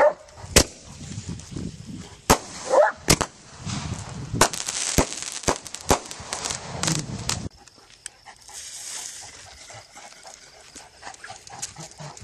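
Consumer fireworks going off: a string of sharp bangs and pops over the first six seconds or so, with crackling between them. A dog barks once about three seconds in. After about seven and a half seconds it drops to faint crackling.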